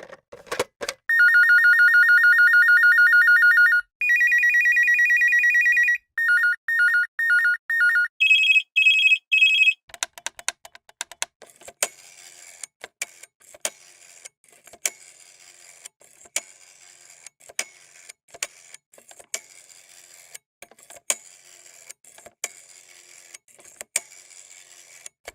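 An electronic landline telephone ringer plays several ring patterns: a warbling two-tone ring, then a slightly higher one, then quick pulsed rings rising in pitch near the middle. After these come about fifteen seconds of irregular sharp clicks.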